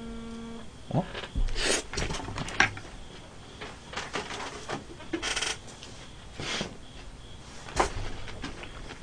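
Scattered clicks, knocks and short rustles of a person moving about at a table, reaching behind and picking up a phone. A brief steady tone sounds right at the start.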